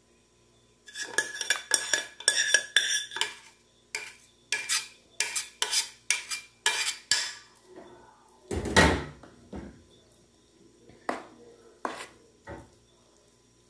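Metal cutlery clinking and scraping against pots and dishes in a quick run of sharp strikes, then a heavier clunk about nine seconds in and a few scattered clinks after it.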